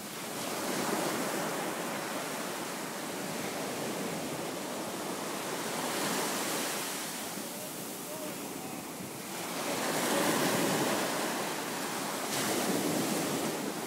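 Ocean surf breaking and washing up the beach, swelling and fading with each wave every few seconds.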